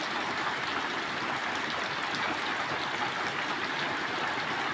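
Heavy rain falling steadily, an even hiss with dense drop patter throughout.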